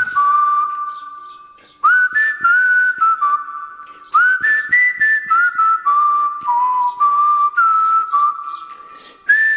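A whistled tune: clear held notes that step up and down in short phrases, each phrase opening with a quick upward slide, with faint light taps behind it. New phrases begin about two seconds in, about four seconds in, and near the end.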